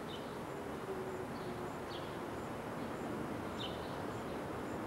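Outdoor countryside ambience: a steady rushing noise with a bird giving two short high chirps, about two seconds apart.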